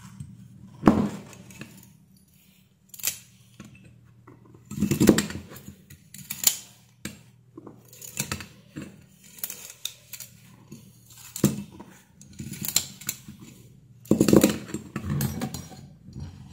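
Safety-wire twisting pliers being pulled out along their spiral rod again and again, the spinning jaws twisting the safety wire. Each pull is a short burst of metallic clicks and rattling, about ten in all at uneven intervals.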